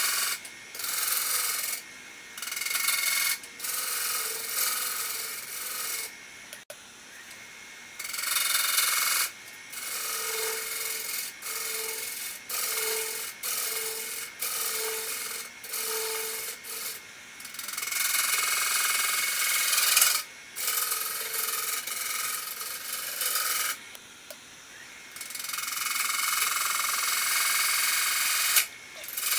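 Cottonwood platter spinning on a wood lathe while the wood is worked in repeated scraping passes of a few seconds each, with short pauses between. A faint tone pulses a little more than once a second in the middle passes.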